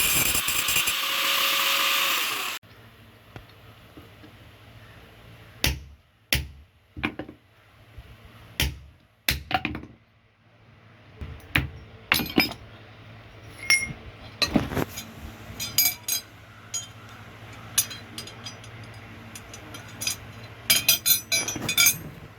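A loud steady machine noise cuts off suddenly about two and a half seconds in. Then comes a series of irregular metallic clinks and knocks as steel tools and workpieces are handled and tapped in a blacksmith's workshop, some with a brief high ring, over a low hum.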